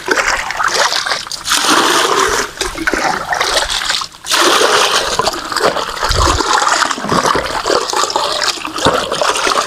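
Water pouring and splashing steadily into a container, with a brief pause about four seconds in.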